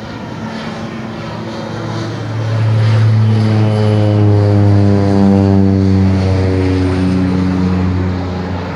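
Single-engine agricultural spray plane flying low overhead. Its propeller and engine drone grows louder about two seconds in and stays loud as it passes. It eases off slightly near the end, dropping a little in pitch as it moves away.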